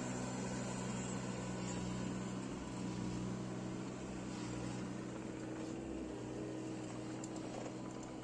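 Hitachi Zaxis 19U mini excavator's diesel engine running steadily under working revs as the machine lifts and swings a loaded bucket of sand.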